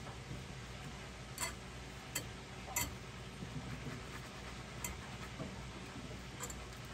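A silicone-coated whisk stirring sauce in a small saucepan, with a few light clicks as it knocks against the pan, over a steady low hum.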